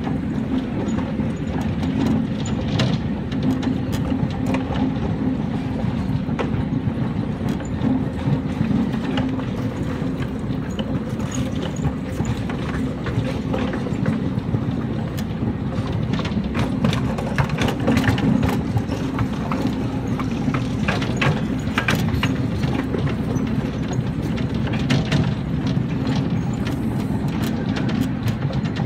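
Quarter-scale ride-on railroad train rolling along the track: a steady low rumble of wheels on rail, with many scattered sharp clicks and clanks from the rail joints and cars, densest in the second half.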